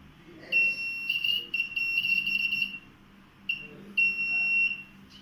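Electronic buzzer of a homemade IR-sensor security alarm sounding a steady high-pitched beep, the sign that the sensor has detected something passing. One long beep of about two seconds starts about half a second in, followed by a short blip and a shorter beep near the end.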